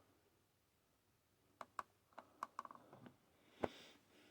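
Light clicks and taps of small hard objects being handled, a quick run of them in the middle, then one louder knock near the end.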